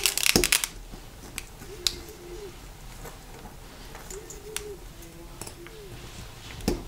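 Small metallic clicks and taps of a spring bar tool working the spring bars of a Seiko 5's stainless-steel bracelet to release it from the case lugs: a quick cluster of clicks at the start, then single clicks spaced about a second apart.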